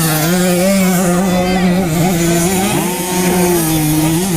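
Small 65cc two-stroke motocross bikes running at high revs, a high buzzing whine whose pitch rises and falls with the throttle, with more than one engine heard at once.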